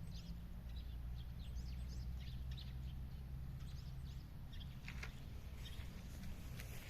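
Small birds chirping in many short, high calls, over a steady low rumble.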